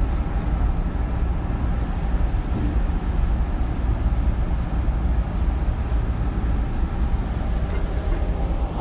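Interior running sound of a Hanshin 9000-series electric train: a steady low rumble of wheels on rail, with faint steady motor tones over it.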